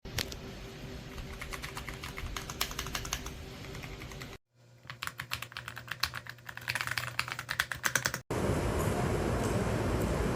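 Typing on a Royal Kludge RK R65 gasket-mount mechanical keyboard, with fast runs of key clicks, broken by a brief gap about four seconds in. From about eight seconds in the clicking gives way to a steady noise.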